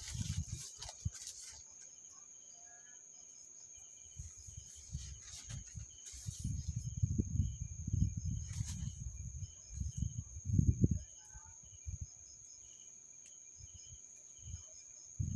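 Irregular low bumps and rubbing from handling potted plants and paper packing in a cardboard box, heaviest in the middle of the stretch. Behind it, insects chirp in short repeating pulses over a steady high whine.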